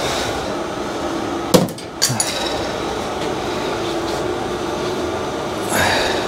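Two sharp metallic clanks about a second and a half and two seconds in, the second with a short ring, as the steel hooks of a ratchet strap knock about while it is untangled. A steady background hum runs underneath, and a brief rustle comes near the end.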